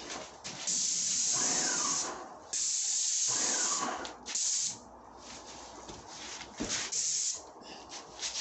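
Paint spray gun hissing in bursts as the trigger is pulled for each pass and released: two long passes of about a second and a half, then shorter bursts, with quiet gaps between. This is the final coat being sprayed.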